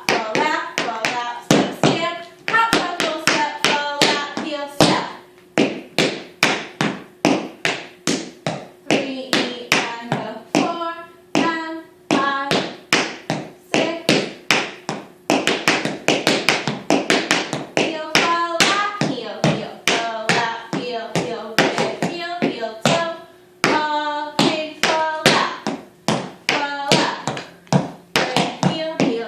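Tap shoes striking a hard floor in quick, rhythmic clusters of sharp taps: a tap dance routine.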